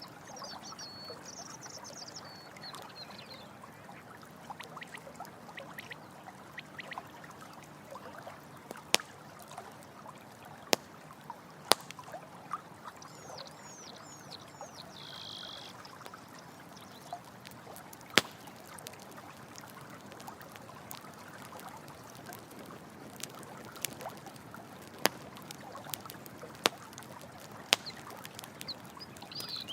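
Running water trickling and pouring steadily, with the sharp pops and crackles of a campfire scattered through. Short, high chirping animal calls come near the start and again around halfway.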